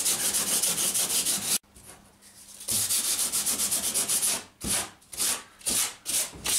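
Hand-sanding cured epoxy and woven glass mat along a fibreglass boat keel with a sanding pad, feathering the glassed edge flush. Quick back-and-forth strokes, about six a second, stop suddenly after about a second and a half and start again about a second later. Near the end they slow to separate strokes about two a second.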